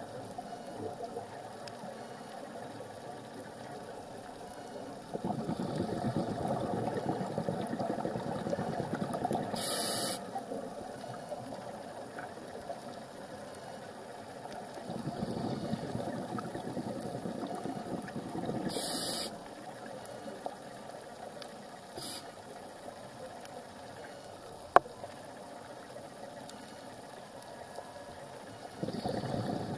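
Scuba diver breathing through a regulator underwater: long rushes of exhaled bubbles about ten seconds apart, each ending in a brief sharp hiss, over a steady underwater hiss. A single sharp click sounds once, late on.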